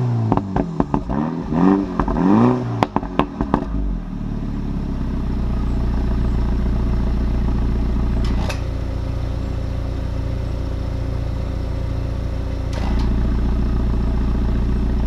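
MINI John Cooper Works turbocharged four-cylinder revved through its exhaust in about four quick throttle blips, each rising and falling in pitch, with pops and crackles on the overrun. It then settles into a steady idle that shifts in level twice before cutting off just after the end.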